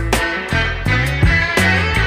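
Background music: an instrumental track with guitar and a steady drum beat.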